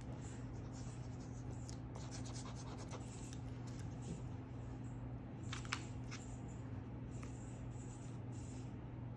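Faint scratching and rubbing of paper under hands and a glue bottle's tip, with a few soft taps, over a steady low hum.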